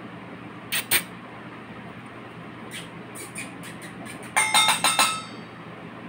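Rose-ringed parakeet knocking and rattling a small plastic bowl against a stone floor with its beak: two sharp knocks about a second in, a few light taps, then a quick clattering run of about five knocks with a short ringing clink near the end.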